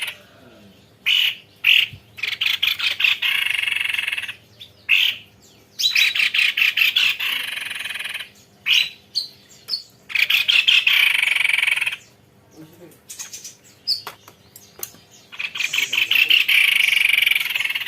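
Tepus leher putih babbler singing long rolling trills: five bursts of very rapid repeated notes, each about two seconds long, with a few short high chips in the gaps.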